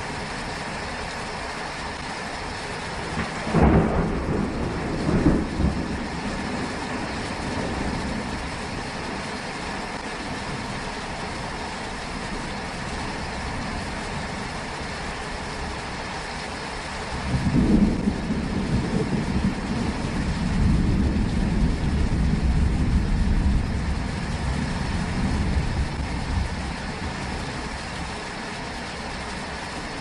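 Steady rain falling, with thunder rolling in twice: a rumble with two loud peaks about four seconds in, then a longer rolling rumble from about seventeen seconds that lasts nearly ten seconds.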